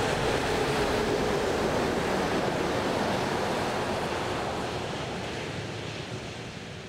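A three-trailer road train passing on a wet highway: the hiss of tyre spray and the truck's running noise are loudest about a second in, then fade steadily as it drives away.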